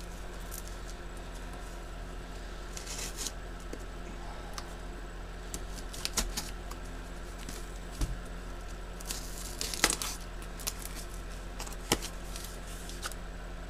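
Knife cutting open a cardboard package: intermittent scraping and tearing of packing tape and cardboard with crinkling and sharp clicks, the loudest strokes about ten seconds in, over a steady low hum.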